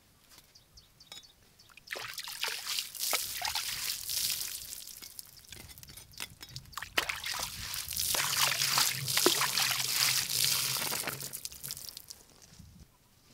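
Water splashing and sloshing as a woven basket of cut cucumber is washed in a clay water jar, in two bouts with a lull between them.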